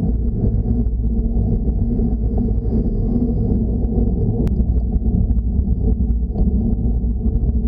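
Steady low rumble of wind buffeting an action camera's microphone on a slowly climbing bicycle, with one sharp click about four and a half seconds in.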